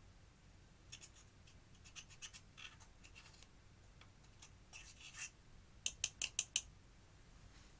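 Crisp clicks and crackles from clear slime being worked by hand with eyeshadow mixed in. About six seconds in there is a quick run of five sharp clicks.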